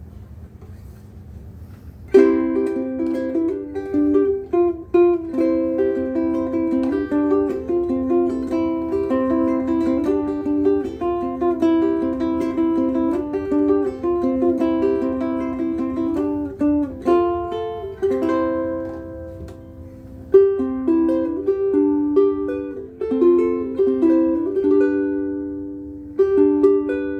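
Acoustic ukulele strung with Aquila B-black strings, played solo in a run of plucked notes and chords that starts about two seconds in, with a couple of short breaks.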